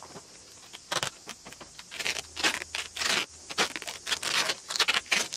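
Tape being pulled off its roll in repeated, irregular rasping strips as it is wound tightly around an epoxied aluminium mast joint to compress it.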